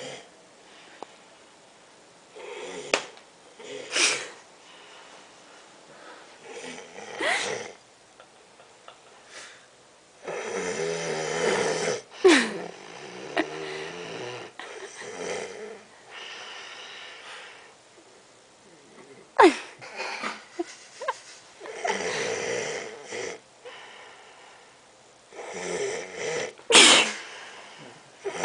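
A man snoring in his sleep: long noisy snores recurring every few seconds, with short sudden sharp sounds in between.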